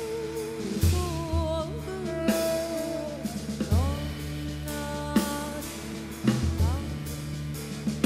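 Woman singing a Korean traditional–jazz fusion song in long held notes with a wide wavering vibrato, sliding up into new notes a few times, over a jazz band with low held bass notes and light drum-kit strokes.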